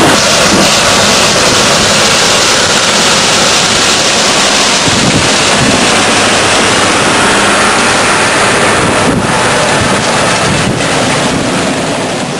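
Loud, steady rushing of wind on the microphone over the running of farm machinery.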